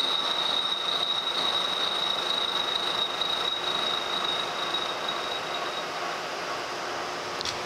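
Kearney & Trecker 3H horizontal milling machine feeding a gear-tooth cutter dry through a cast iron gear blank: a steady machining noise with a high whine that fades out about three-quarters of the way through.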